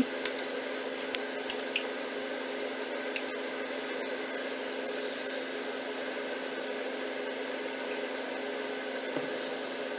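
A steady electrical hum throughout, with a few light clicks of a metal spoon against a ceramic bowl in the first two seconds as ground beef is stirred.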